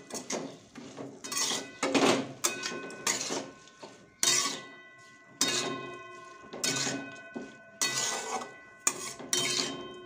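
Metal spatula scraping and clanking against a metal kadhai while stirring a dry vegetable stir-fry, about once a second, each stroke leaving the pan ringing.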